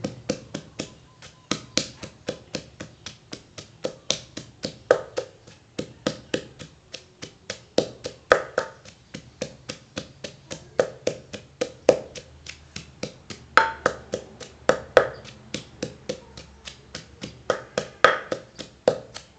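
Wooden pestle pounding red chilies and garlic in a clay mortar: steady dull knocks at about four strikes a second, with a few harder strikes now and then.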